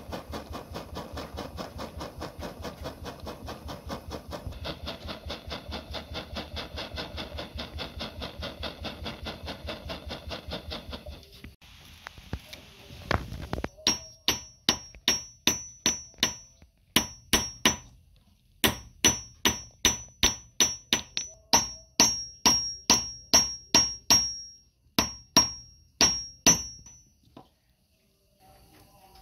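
Metal hammer striking a thin metal strip on a small steel jeweller's stake, in runs of sharp, ringing blows about two a second with short pauses, during the second half. Before that comes a fast, even pulsing while a torch flame heats the strip.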